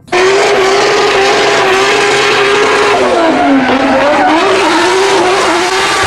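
Drift car's engine running at high revs with its tyres squealing and hissing as it slides sideways. The engine note dips about halfway through, then climbs back.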